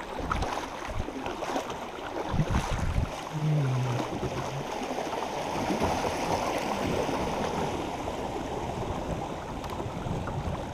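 Creek water running and lapping around a kayak, a steady rushing wash, with a few low bumps about two to three seconds in.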